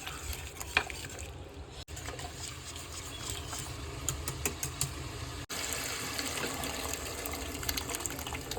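Water running or being poured: a steady gushing hiss with a few light clicks, broken off abruptly twice.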